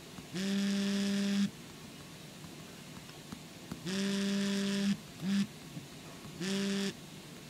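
iPhone vibration motor buzzing in four pulses as a custom vibration pattern is recorded by holding a finger on the screen: two long buzzes of about a second each, then a short one and a medium one. Each buzz is a steady hum that starts and stops sharply.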